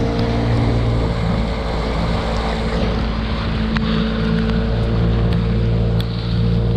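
A small outboard motor pushing an aluminium john boat, running steadily at cruising speed. Wind buffets the microphone and water rushes past the hull.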